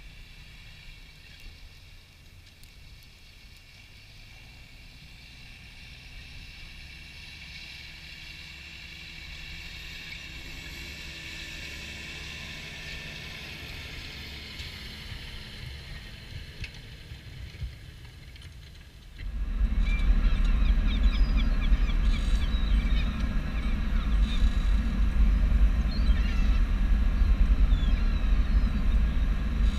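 Tractor pulling a six-furrow plough: at first a fainter engine with a steady high whine, then, about two-thirds of the way in, an abrupt change to loud, close engine rumble.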